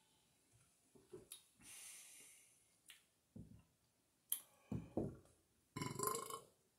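A man drinking from a 40-ounce glass bottle of malt liquor: faint swallowing and breathing, then a sharp clink of the glass bottle a little after four seconds in, followed by short breaths and vocal sounds as he finishes.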